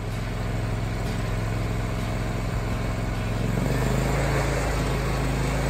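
John Deere Z540R zero-turn riding mower's engine running steadily, growing somewhat louder a little over halfway through.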